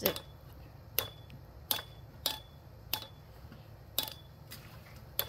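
Seven sharp knocks at uneven intervals, roughly one a second, each with a brief metallic ring.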